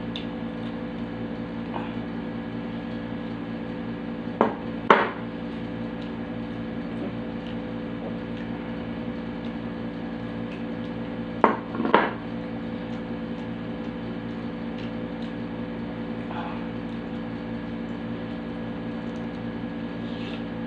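A steady machine hum runs throughout. Over it come a few sharp clinks of a plate and spoon, two quick ones about four and a half seconds in and two more about seven seconds later.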